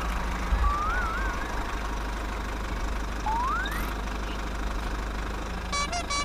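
Steady low engine rumble, with a short wavering whistle about a second in, a rising whistle a little past halfway, and a quick run of beeps near the end.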